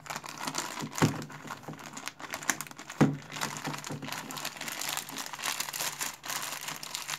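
Clear plastic bags of small electronic parts crinkling as they are handled, with two sharper clicks about one and three seconds in.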